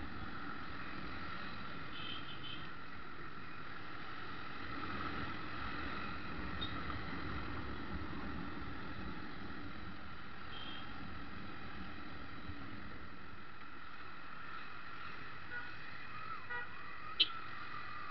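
Motorcycle riding through city traffic, its engine and road noise running steadily as heard from a bike-mounted camera. A brief sharp high sound stands out near the end.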